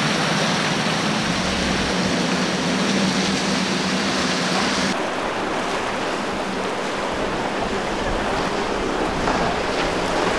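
Outboard-powered boats running at speed: a steady low engine drone over rushing, churning wake water, with wind on the microphone. About five seconds in the sound changes abruptly; the drone fades and the low wind rumble grows.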